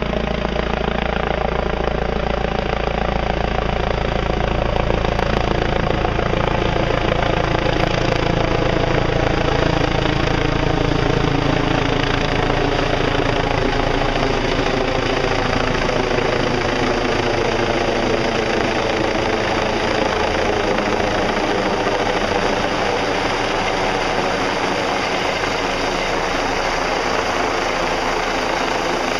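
Medevac helicopter hovering low overhead: a loud, steady noise of main rotor and engine. The deep low rumble thins out about twelve seconds in while the higher rotor tones carry on.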